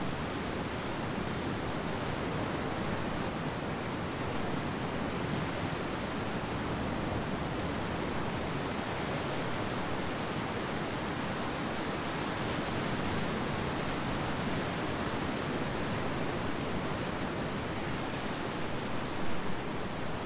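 Ocean surf washing on a beach, a steady rush with a few brief louder pulses near the end.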